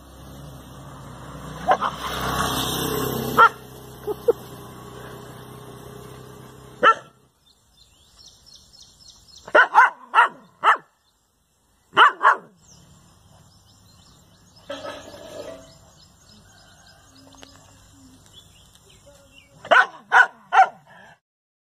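Dogs barking at their own reflections in a mirror, in short bursts of two to four sharp barks with pauses between. In the first few seconds a rough, rising noise comes before the barking.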